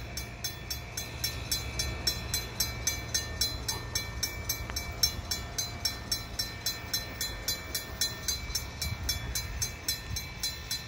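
Level-crossing warning bell ringing steadily, about four strikes a second, over the low rumble of an approaching EXO MR90 electric multiple-unit commuter train.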